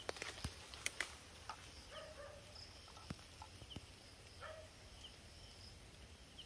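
Faint night-time forest sounds: short, low animal calls repeating every two seconds or so over faint high insect chirps, with a few light clicks.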